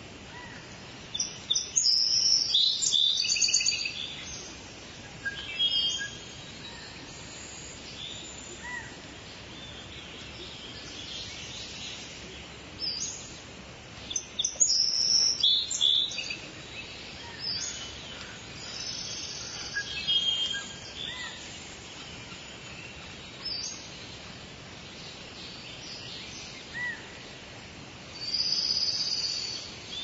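Rainforest ambience: several birds chirping and calling in short clusters, loudest about a second in, again around halfway and near the end. Under them runs a steady hiss of insects such as crickets.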